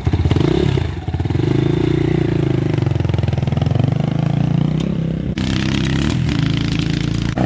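250cc dirt bike engine revving as the bike pulls away, easing off briefly about a second in, then pulling steadily. The sound changes abruptly about five seconds in.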